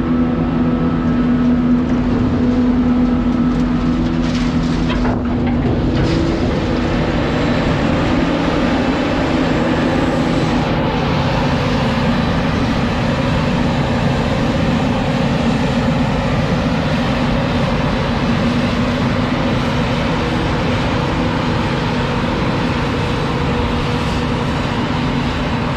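Farm machinery running: for the first five seconds a tractor engine hums steadily, then the sound changes to the denser, noisier run of a forage harvester chopping maize, with no steady hum.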